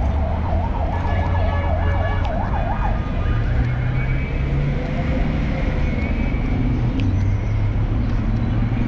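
Emergency vehicle siren on a fast yelp, its pitch warbling up and down about four times a second for the first three seconds, over the steady rumble of city traffic.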